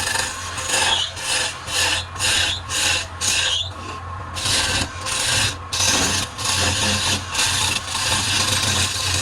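Wood lathe running with a steady low hum while the spinning wooden workpiece is worked in repeated rasping strokes, about two or three a second with short gaps between them.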